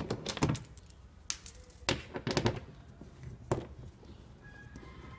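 Several irregular sharp knocks and taps from hands and a wrench working on the plastic window-regulator carrier panel inside a Nissan Murano's stripped front door, as its bolts are being undone.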